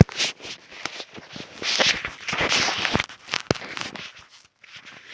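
Close handling noise on the filming phone: clicks, taps and rubbing as slime is wiped off it, with a longer spell of rubbing about two seconds in.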